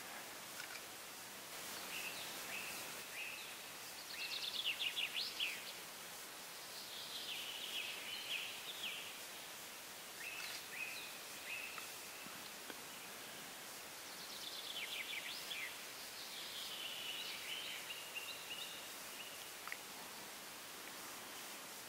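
A songbird singing short phrases of high chirps and quick trills every few seconds, faint over a steady outdoor hiss; the loudest phrase is a fast trill about four to five seconds in.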